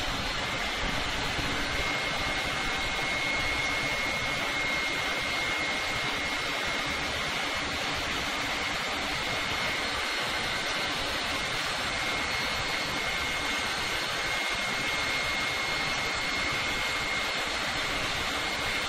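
Steady machine noise, an even rushing hiss with a faint high whine that fades out partway through and comes back.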